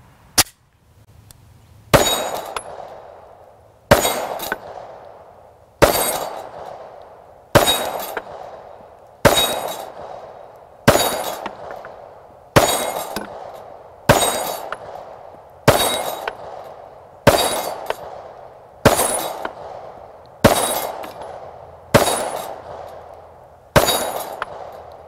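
SIG Sauer P320 M18 9mm pistol firing fourteen shots at a steady slow pace, about one every 1.7 seconds. Each shot is followed by the high ring of a steel flapper target being hit.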